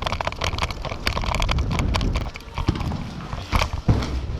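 Airsoft players on the move: a run of irregular sharp clicks and knocks over a low rumble of handling and movement on the microphone, with two louder knocks about three and a half seconds in.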